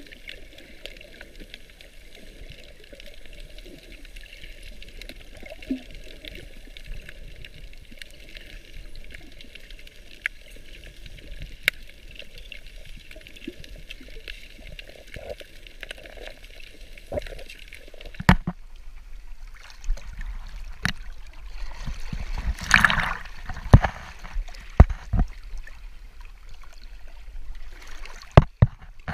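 Muffled underwater sound through a GoPro's waterproof housing: a steady hiss with a few scattered clicks. About two thirds of the way through, the camera breaks the surface and water splashes and sloshes around it against the shore rocks in irregular bursts.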